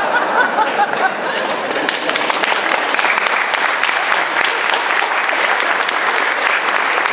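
Audience applauding, the clapping thickening about two seconds in, with voices chattering at first.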